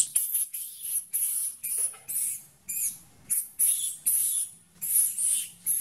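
Baby long-tailed macaque crying in a rapid run of short, high-pitched squeals, about two or three a second.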